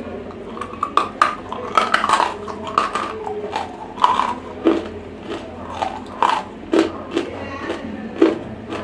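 Close-miked crunching as dry, semi-roasted Nakumatt edible clay is bitten and chewed. It comes as a run of sharp, irregular crunches about once a second.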